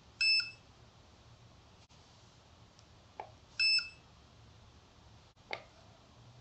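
Sensegood handheld spectrophotometer beeping twice, about three and a half seconds apart, each a short electronic beep about a third of a second long, as it takes a colour measurement. Light stylus taps on its touchscreen come just before the second beep and again near the end.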